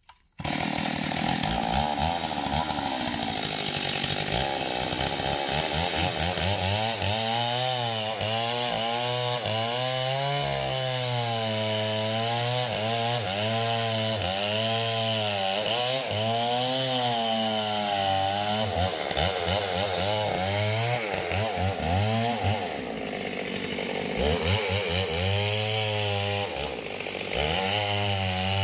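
Small two-stroke chainsaw running hard, its engine note rising and falling every second or two as the chain bites into the trunk of a kapok tree. It comes in abruptly at the start and drops lower for a few seconds near the end before picking up again.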